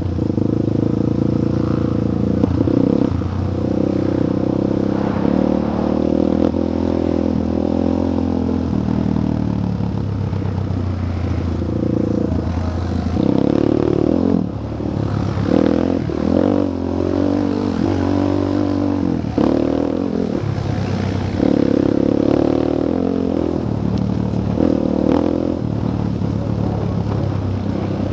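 Single-cylinder off-road engine of the ridden machine running on a dirt trail, its pitch rising and falling as the throttle opens and closes, with clattering knocks from the machine over bumps.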